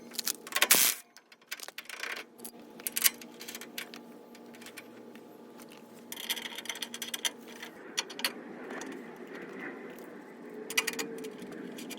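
Scattered metallic clinks, taps and rattles of tools and parts being handled in a garage, over a steady low hum.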